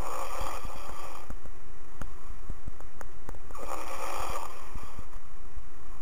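A sleeping person snoring, heard over a phone line: two snores, one at the start and one about three and a half seconds in, each lasting about a second. Constant low crackle and clicking from the line runs underneath.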